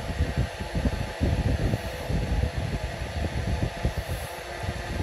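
Red tabby cat purring close up while being stroked: a low, steady rumble that swells and dips every second or two.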